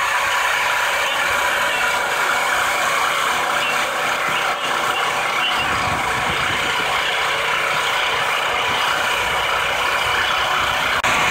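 Small gas engine of a hydraulic log splitter running steadily, with a brief dip near the end.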